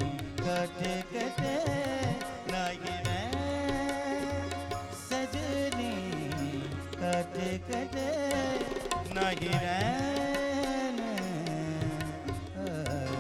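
Thumri music: tabla playing under a melodic line that slides between notes over a steady low drone.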